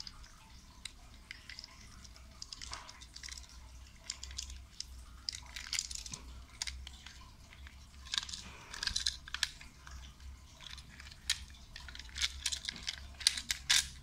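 Hands prying a plastic toy engine free of its plastic packaging fixings: irregular small plastic clicks, scrapes and rustles, busier and louder in the second half.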